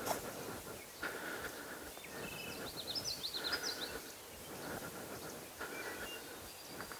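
Woodland ambience with a songbird chirping a quick run of short high notes about two to three and a half seconds in, and a few other brief bird calls scattered through.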